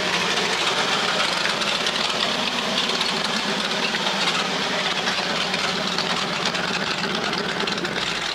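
Ford 460 V8 with a Holley four-barrel carburetor idling steadily while warm, its choke now open after a new electric choke cap was fitted. It stops abruptly near the end.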